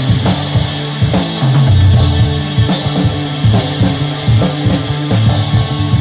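Instrumental rock jam by a live band: a drum kit with kick and snare keeping a steady beat under low held notes that change every second or so.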